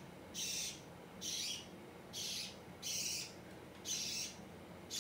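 Budgerigar calling: short, harsh, high-pitched chirps repeated about once a second.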